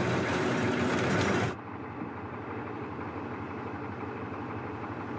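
Humvee engine running as it drives over rough ground. About a second and a half in, the sound cuts suddenly to a quieter, duller steady engine noise.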